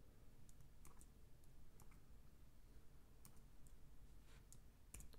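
Faint, irregular clicks of a computer mouse, about a dozen scattered over a few seconds, over low room hiss.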